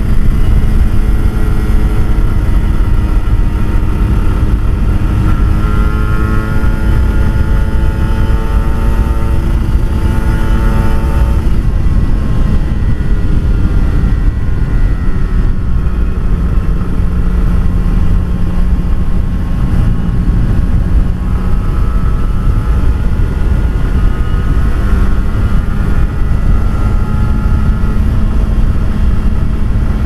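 Kawasaki Ninja RR 150's two-stroke single-cylinder engine through an aftermarket racing exhaust, running continuously as the bike is ridden. Its pitch climbs slowly for several seconds twice, about a third of the way in and again in the last third, over a constant low rumble.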